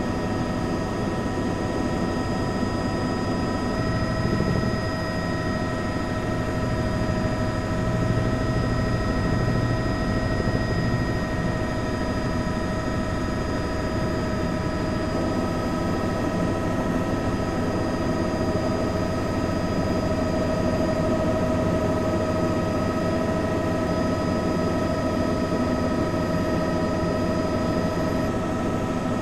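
Helicopter engine and rotor noise, a steady drone with a constant turbine whine over it.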